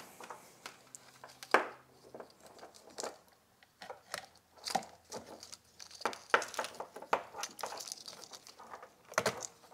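Plastic wiring-harness connectors and cables being handled and fitted: scattered small clicks and faint rustling.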